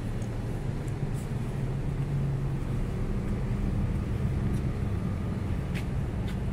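Steady low city rumble with a steady low hum running through it and a few faint ticks.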